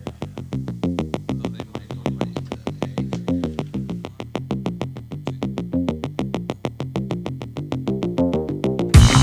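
Electronic background music: a fast, even run of short synthesizer notes, about eight a second, with a louder, fuller beat coming in near the end.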